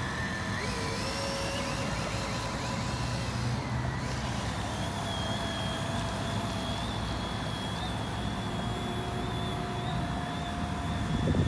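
Radio-controlled model boat's motor running, a thin whine that steps up and down in pitch as the throttle changes, over a steady rush of wind on the microphone that grows louder near the end.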